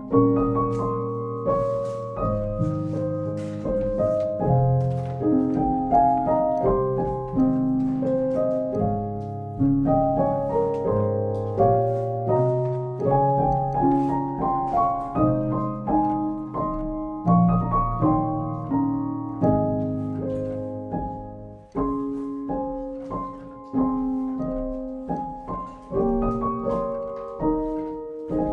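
Background piano music: a gentle melody of struck notes and chords over a steady bass.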